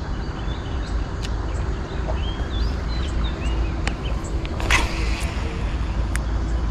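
A baitcasting rod being cast: a short swish about two-thirds of the way through as the lure is flung out over the water. Under it runs a steady low rumble, with a few bird chirps.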